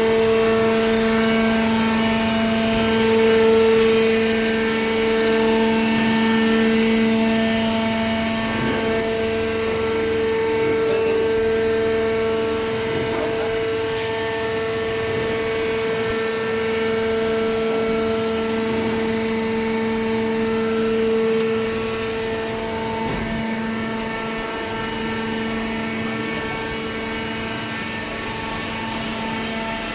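Hydraulic power unit of a vertical baler press, its electric motor and pump running with a steady hum. A little past twenty seconds one tone drops away and the sound gets slightly quieter.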